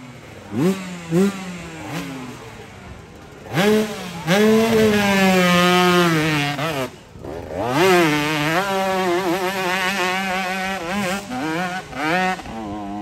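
125cc dirt bike engine revving: a few quick throttle blips, then long stretches held at high revs with the pitch wavering up and down under load as the bike climbs a steep dirt hill. The revs drop briefly about seven seconds in.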